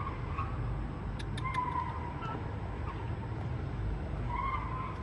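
Convoy of pickup trucks and SUVs driving past: a steady rumble of engines and tyres, with a few short high squeals and a quick run of clicks about a second in.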